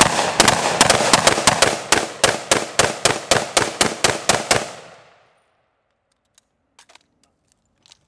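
Short-barreled AR-15 pistols fired in a rapid string of shots, about five a second, stopping about four and a half seconds in; a few faint clicks follow.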